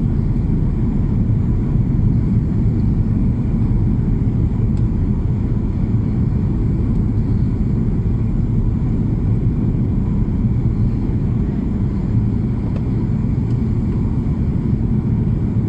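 Steady low rumble of an airplane in flight, even and unchanging in level, with a faint steady whine above it.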